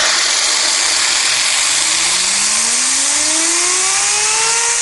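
Pressurised steam hissing loudly through a homemade Tesla disk turbine as the steam valve is opened. About two seconds in, a whine rises steadily in pitch as the turbine's disks and the Bosch car alternator they drive spin up, levelling off near the end.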